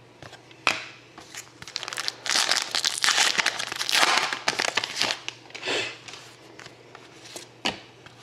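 A plastic-foil trading card pack wrapper crinkling and being torn open, with a stretch of dense crinkling in the middle and a few sharp ticks of cards being handled.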